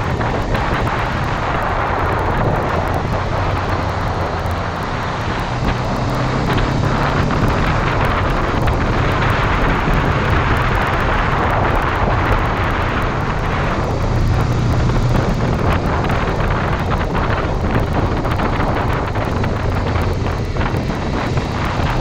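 Honda CBR500R's 471cc parallel-twin engine running at road speed, its note shifting a little with the throttle, under heavy wind noise on the microphone.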